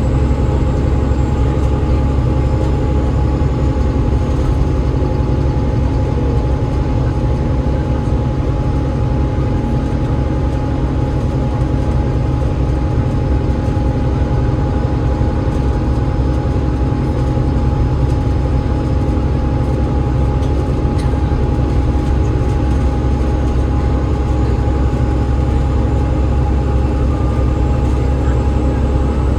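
Cabin sound of an Enviro500 MMC double-decker bus cruising steadily: the Cummins ISL8.9 straight-six diesel and ZF EcoLife automatic gearbox give a constant low drone with road noise, and a steady high whine runs over it.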